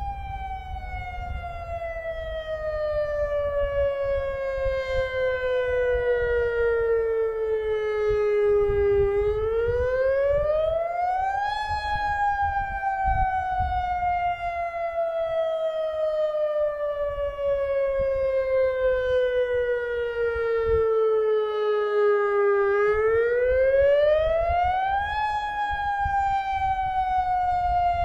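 Federal Signal outdoor lahar warning siren sounding a wailing Attack signal. The pitch falls slowly for about ten seconds, climbs back up over two or three seconds, and falls again; it climbs twice, about nine and about twenty-three seconds in. A fainter second siren wails underneath.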